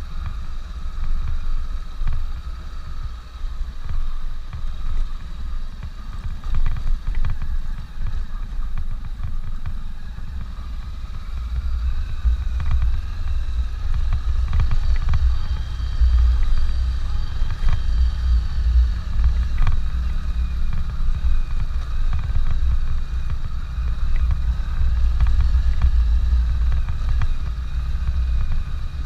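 Honda CB500X parallel-twin motorcycle running on the move, with heavy, uneven wind rumble on the microphone that grows stronger about halfway through.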